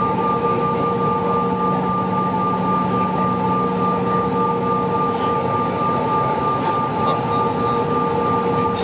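Cabin noise inside a CRJ-900 regional jet taxiing: the steady drone of its rear-mounted turbofan engines with several steady whine tones held over it, and a few faint ticks of cabin rattle.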